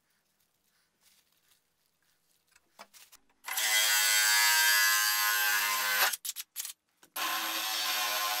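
Cordless drill running a hole saw into a PVC pipe, in two runs at a steady speed: the first starts about three and a half seconds in and lasts a couple of seconds, and the second starts near the end. A few faint ticks come before the first run.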